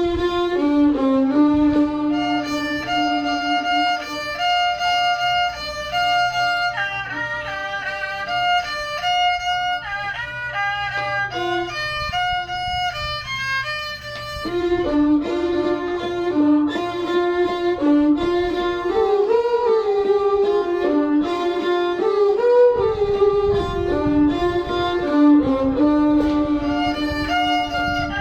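Music: a bowed string instrument playing a melody of held and moving notes, with a second, lower line beneath it.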